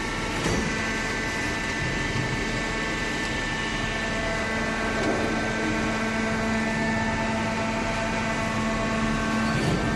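Hydraulic cardboard baler running: a steady motor and pump hum with a whine, with a short knock about half a second in and another near the end.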